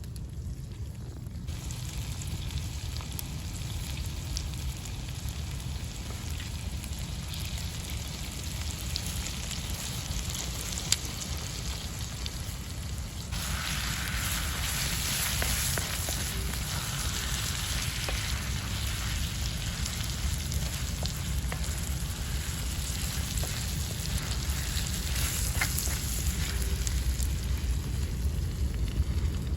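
Liver and potatoes sizzling as they fry in a saj pan: a steady frying hiss with small crackles and a low rumble underneath, growing louder about a third of the way through.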